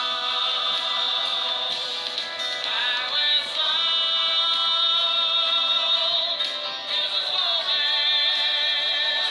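Background music with a singing voice holding long wavering notes.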